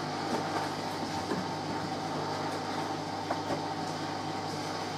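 Domestic washing machine running, a steady low mechanical hum with a few faint clicks over it.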